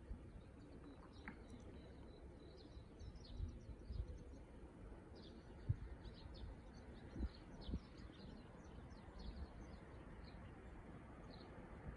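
Small birds chirping, many short high calls scattered throughout, faint over a low outdoor rumble with a few soft thumps.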